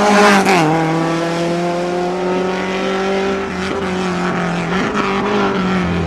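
Lada rally car's four-cylinder engine at high revs, passing close. The note drops in pitch about half a second in as the car goes by, then holds at high revs as it pulls away, dipping briefly twice.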